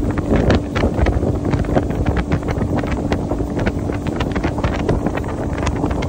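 Wind buffeting the microphone as a fishing boat runs across the water, with a steady low engine hum underneath.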